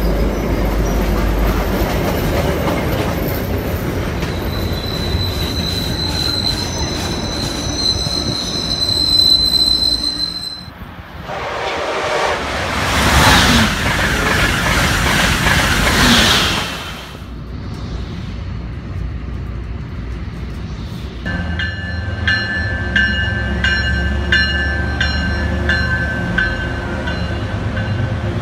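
Passenger trains moving through stations: an MBTA commuter train's steady rumble with a thin high whine, then an Amtrak train rushing loudly past for about six seconds, then, from about 21 s, an MBTA commuter train with wheels squealing and rapid clicking over the rails.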